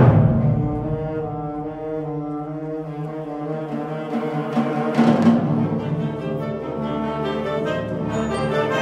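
Wind band playing sustained brass-led chords. A loud percussive hit dies away at the start and a sharp accent comes about five seconds in, then the music swells again toward the end.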